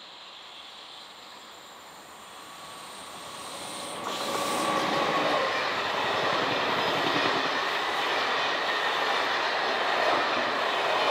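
Locomotive-hauled passenger train of SNCF Corail coaches approaching, growing louder, then passing close by about four seconds in: a steady loud rush of wheels running on the rails with a rapid clatter.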